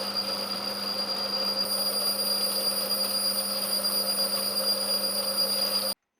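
Mini lathe turning Inconel 718 at slow speed: a steady machine whine with several high constant tones over cutting noise, which cuts off abruptly near the end.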